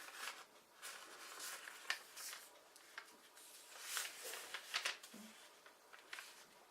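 A sheet of paper being handled and folded by hand: faint, irregular rustles and creases as the paper is shaped into an origami bird.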